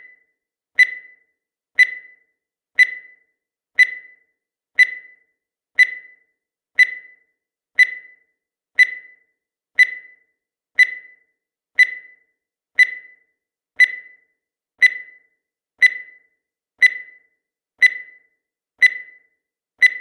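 Countdown timer sound effect: a short, high beep repeating once a second, evenly spaced.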